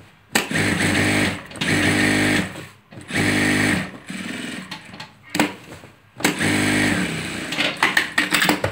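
Industrial sewing machine stitching a pocket onto an apron in several short bursts, stopping and starting between runs, with a few sharp clicks in the pauses.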